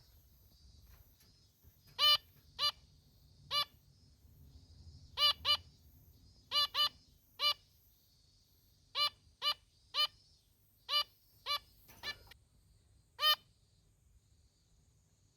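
Female zebra finch giving short single "meep" calls, about sixteen of them at uneven gaps. The calls start about two seconds in and stop a couple of seconds before the end.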